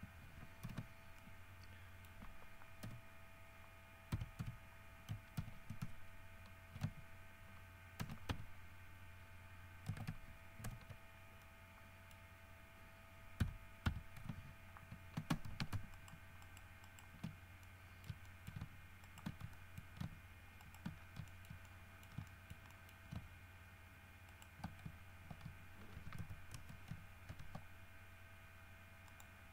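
Computer keyboard keys and mouse buttons clicking irregularly, in scattered clusters, over a faint steady electrical hum.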